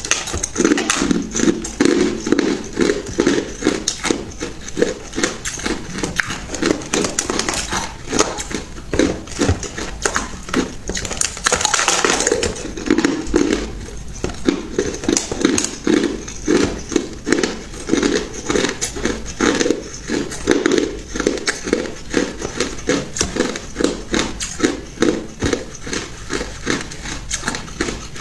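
Ice being chewed close to the microphone: a steady run of hard crunches, several a second, with a longer crackling crunch about twelve seconds in.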